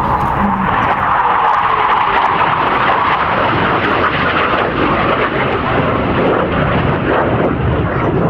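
Hawker Hunter jet's Rolls-Royce Avon turbojet engine producing a loud, steady rushing noise as the aircraft flies a display pass.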